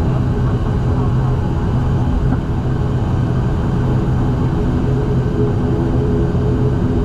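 Wing Air ATR 72 turboprop's engines and propellers running with a steady, loud drone and a few low steady tones.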